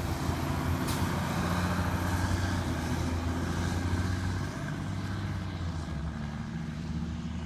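Peterbilt 320 garbage truck's diesel engine running as the truck drives off: a steady low drone that eases off a little after about four and a half seconds. A single short click about a second in.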